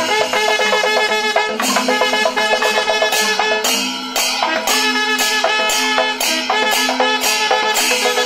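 Traditional Kerala temple ensemble music: curved brass kombu horns sounding sustained notes over sharp percussion strikes about twice a second.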